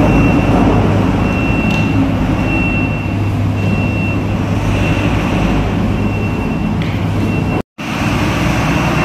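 Heavy diesel vehicle engines running in a steady low rumble, with a high beep repeating about once a second over them. The sound cuts out for a moment near the end.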